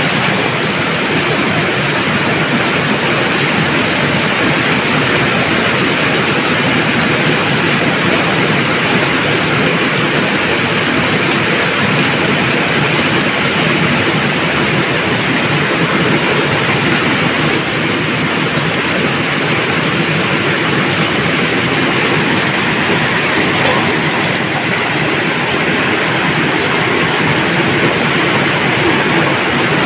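Steady, loud rushing noise with no distinct events or rhythm, unchanging throughout.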